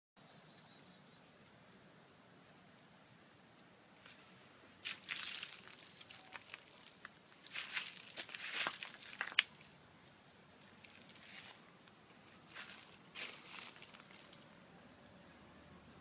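Northern cardinal giving short, sharp, high chip calls, about a dozen at irregular intervals of roughly a second, with stretches of rustling in between.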